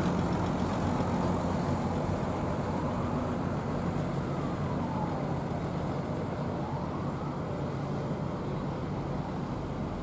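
Diesel bus engines running with a steady low hum amid terminal traffic noise. A faint whine rises and falls twice.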